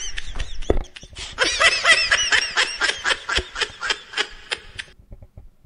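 Hearty laughter in two bouts: a quick run of 'ha-ha' bursts that stops about five seconds in.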